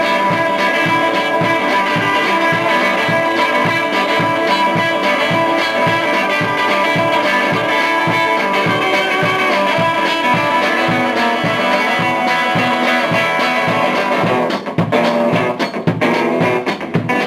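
Instrumental break of a rock song: electric guitar over bass with a steady low pulse. About fourteen and a half seconds in, the band switches to short stop-start hits.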